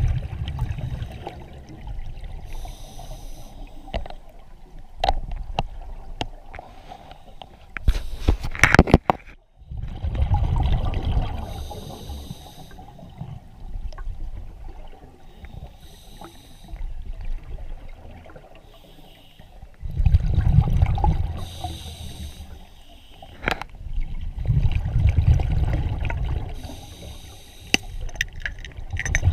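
Scuba diver breathing underwater through a regulator: short hissing inhales alternate with low, rumbling gushes of exhaled bubbles, several times over. A cluster of sharp clicks and knocks comes about a third of the way in.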